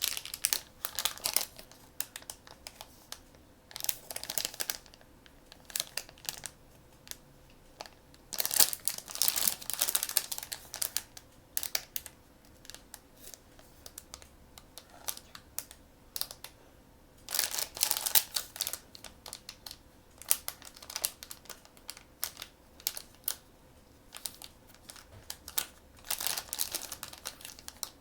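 Crinkling and rustling of blind-bag packaging being handled and opened, in irregular bursts with short clicking sounds between them.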